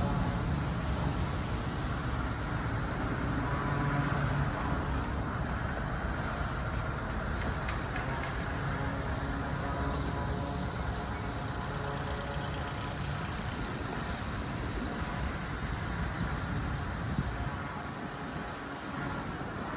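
Steady engine rumble and road traffic noise from motor vehicles running close by; the low rumble eases off near the end.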